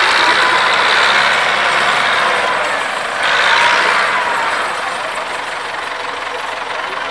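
Belarus tractor's diesel engine revving hard as the tractor moves, with a surge about three seconds in that eases off afterwards.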